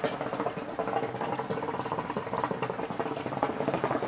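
Water bubbling steadily in the base of a Khalil Mamoon Exotica hookah as smoke is drawn through it.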